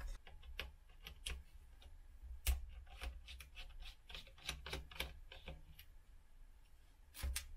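Irregular small clicks and taps of hard plastic parts being handled inside an opened IBM ThinkPad 755C laptop's floppy-drive bay. The sharpest click comes about two and a half seconds in, and a close pair comes near the end.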